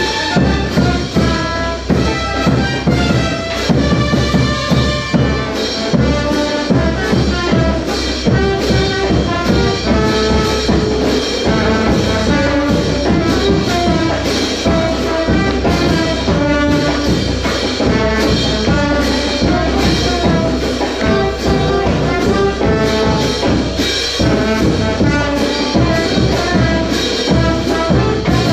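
Brass band playing a tune in unison with drums keeping a steady beat.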